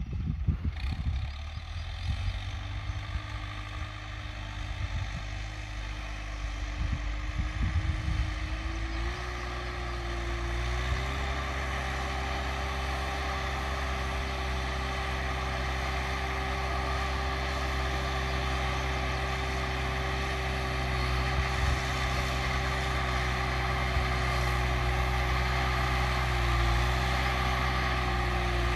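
New Holland TT4.75 tractor's diesel engine running steadily under load while pulling a plough. Its pitch steps up about ten seconds in and then holds. Irregular low buffeting is heard through the first several seconds.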